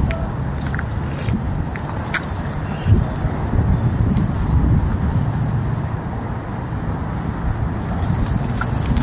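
Steady low outdoor rumble, with a short thump about three seconds in.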